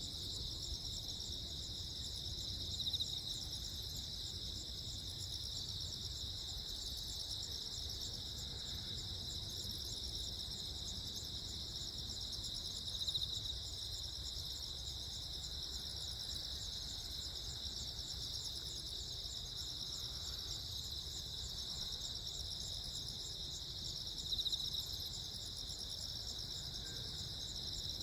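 A chorus of crickets chirping: a steady high trill that swells briefly louder three times, over a faint low background rumble.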